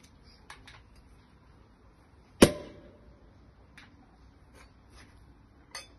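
Cork popping out of a bottle of sparkling wine (Sekt) about two and a half seconds in: one sharp pop with a brief hollow tone and a short hiss after it. A few faint clicks from handling the bottle come before and after.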